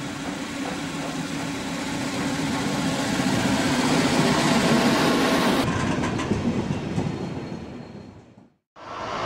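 Small diesel shunting locomotives (DB Köf class) running past in a line, a steady engine and rail noise that swells and then fades away near the end.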